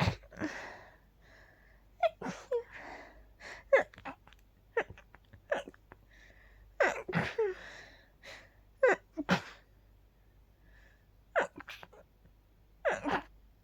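A person sneezing again and again, a dozen or so sharp sneezes in quick succession with breathing between them: a hay-fever sneezing fit set off by pollen.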